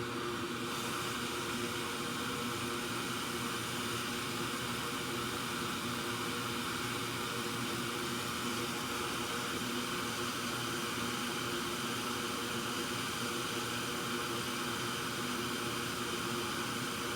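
Steady fan-driven hiss from electronics bench equipment, holding level without a break; a little brighter in the high end from about a second in.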